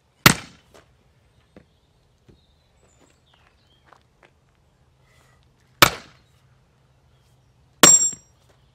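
Splitting axe striking firewood logs: three sharp whacks, one right at the start, one in the middle and a third near the end that is longer and carries a brief metallic ring. Faint knocks of wood pieces come in between.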